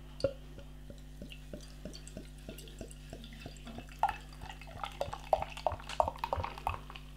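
Beer dripping and trickling from a bottle into a glass. First comes a steady patter of small drips, about three a second. From about four seconds in the splashes come quicker and louder.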